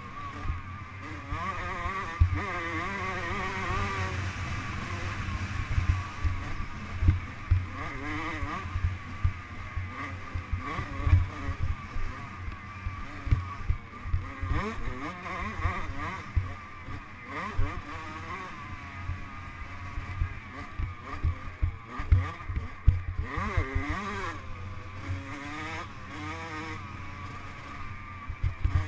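Dirt bike engine running hard at racing speed, its pitch rising and falling as the rider works the throttle and gears, with frequent sharp knocks and a rough low rumble over uneven ground.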